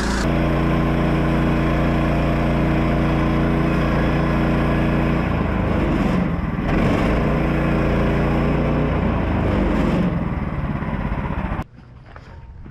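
Gas engine of a portable bandsaw mill running steadily while sawing through the log, its pitch shifting a couple of times. It cuts off suddenly near the end.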